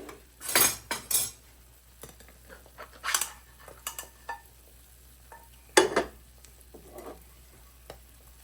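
A utensil scraping and clinking against 8-inch hybrid frying pans, in separate short scrapes and knocks, the loudest knock about six seconds in.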